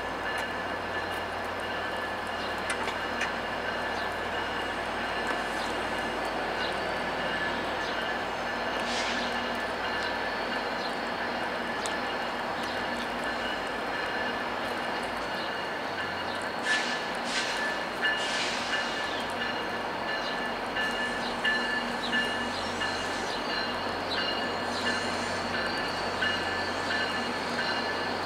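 F40PH-2 diesel locomotives running steadily with their two-stroke EMD engines as a long passenger train pulls slowly out, with light clicking of wheels over rail joints and switches. A few brief wheel squeals come about a third of the way in and again about two-thirds through.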